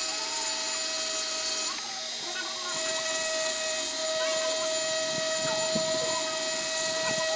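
Handheld electric engraving pen whining steadily as its fine bit grinds into a glass bottle, the whine dipping for about a second around two seconds in, then resuming.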